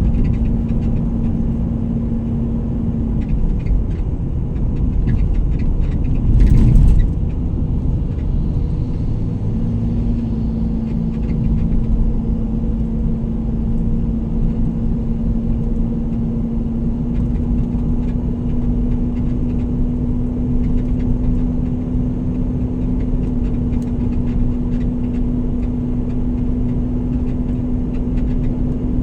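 A vehicle driving on a road: steady engine and road rumble with a constant engine drone. About six and a half seconds in there is one brief, louder burst.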